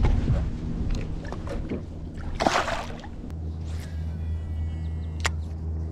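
Water sloshing and splashing against the boat, with a short hissing splash about two and a half seconds in. About three seconds in, an electric trolling motor starts up with a steady low hum, and a single sharp click follows near the end.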